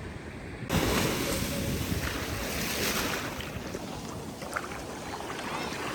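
Sea surf washing on a beach with wind buffeting the microphone; the rush of the waves and wind jumps up suddenly under a second in and then stays steady.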